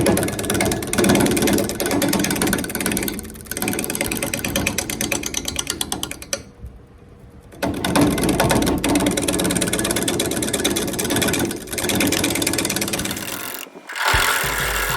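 Wood lathe spinning a rough oak blank while a gouge cuts into it, a loud, rapid chattering of tool on wood that stops briefly a few times as the cut is lifted and restarted.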